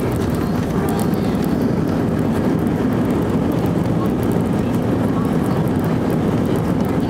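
Airbus A320 cabin noise during landing rollout: a steady loud rumble as the jet decelerates on the runway with its ground spoilers raised.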